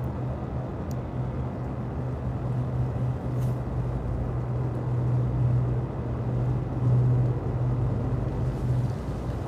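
An engine running steadily with a low, even hum that swells and eases and stops shortly before the end.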